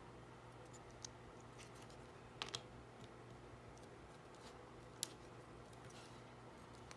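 Faint, sharp plastic clicks as a custom minifigure is handled and set onto the studs of a plastic baseplate: one click about a second in, a quick double click about two and a half seconds in, and a sharper click about five seconds in, over a faint steady hum.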